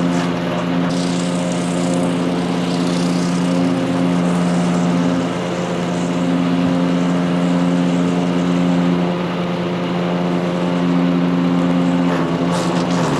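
Power King wood chipper shredder running steadily on its Kohler CH440 14 HP engine, a steady, even hum, with a few sharp crackles near the end.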